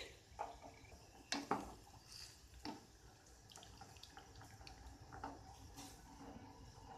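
Water dripping and splashing faintly as blanched spinach leaves are lifted out of a steel pot of hot water. There are a few separate drips and small splashes, the loudest about a second and a half in.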